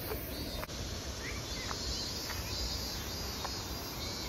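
Outdoor summer ambience of insects buzzing steadily, with a few short, thin bird chirps scattered through it and a low rumble underneath.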